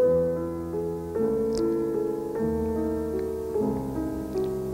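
Slow, soft background music of held chords, changing about once a second.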